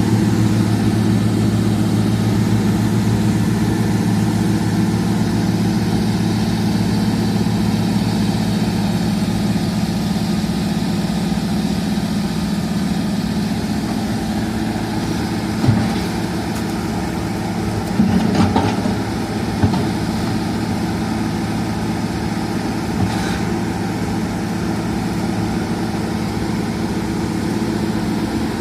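Excavator's diesel engine running steadily at a low, even speed, with a few short knocks about halfway through and another a little later.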